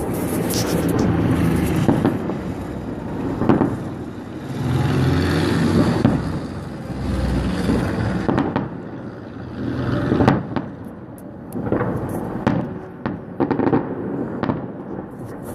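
Fireworks salute: a rapid run of booming shell bursts and sharp cracks over a continuous rumble of further explosions.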